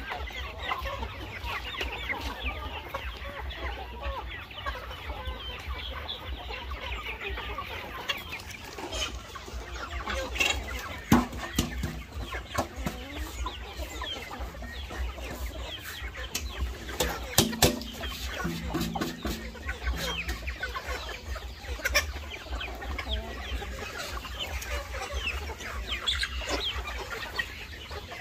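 A flock of chickens clucking continuously while they feed, with a few sharp knocks partway through.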